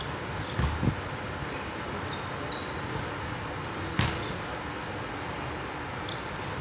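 A basketball bouncing on an outdoor court surface during a pickup game, over a steady rush of background noise. There are two low thumps about half a second in and a sharp smack at about four seconds.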